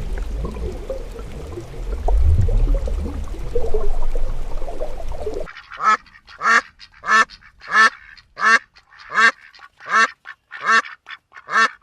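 A low rumble for about five seconds, then an animal calling about ten times in a steady rhythm, roughly one and a half short calls a second.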